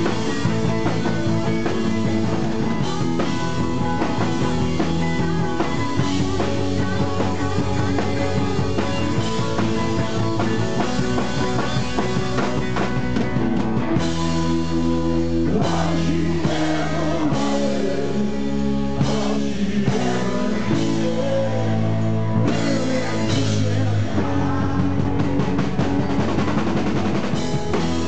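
Rock band playing live and loud: electric guitars, bass and drum kit.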